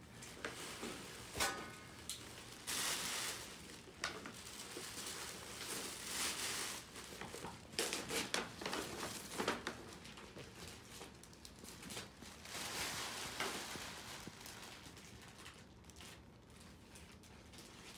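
Gift packaging crinkling and rustling in uneven bursts as it is handled and opened, with a few sharp clicks and knocks.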